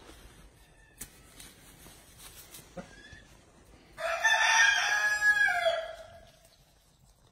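Domestic goose honking: a loud, harsh run of calls lasting about two seconds, starting about four seconds in. Before it, a few faint clicks and rustles.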